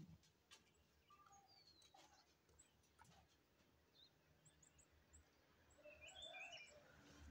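Near silence with faint, scattered bird chirps, a small cluster of them near the end.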